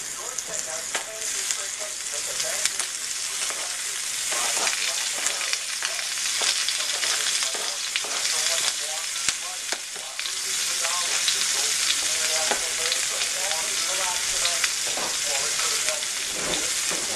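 Food frying, a steady sizzling hiss with many scattered pops and crackles that grows a little louder partway through.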